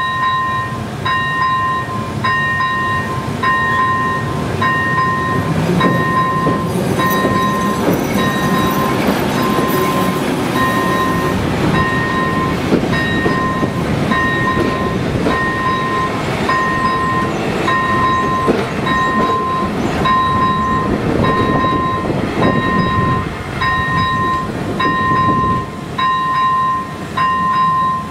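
Electronic level-crossing bell (AŽD ZV-01) beeping steadily, a little more than once a second, as the crossing warns. A passenger train rolls across the crossing, its wheels rumbling and clattering over the rails, and the rumble fades near the end.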